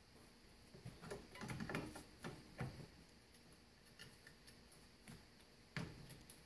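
Faint scattered clicks and rustling as gloved hands handle a rear drum brake shoe and its metal hardware on the backing plate, with one sharper click near the end.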